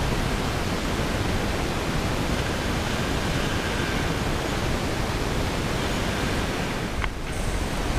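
Steady rushing outdoor noise of wind and gentle surf on a shingle beach, heavy in the low end, with a brief dip about seven seconds in.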